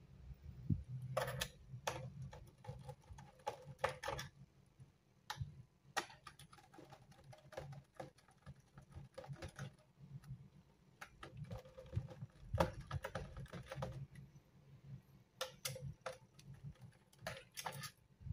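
Small, irregular clicks and taps of a screwdriver working the bottom-cover screws out of an Asus TUF Gaming laptop, with screws and tool knocking lightly against the plastic case.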